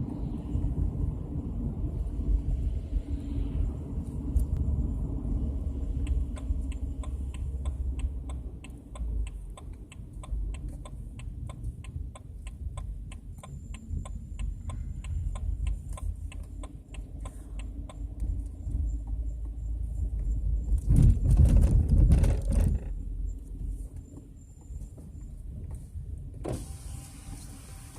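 Regular clicking, about three ticks a second, from the rear wheel area of a 2007 BMW 116i, heard over the car's low rumble while it moves; the owner calls it a strange sound and its cause is not known. A louder burst of noise comes about three quarters of the way through.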